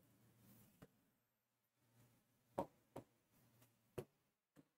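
Near silence broken by about five faint, sharp taps of a pen on an interactive whiteboard's touchscreen, spaced unevenly, the clearest about halfway through.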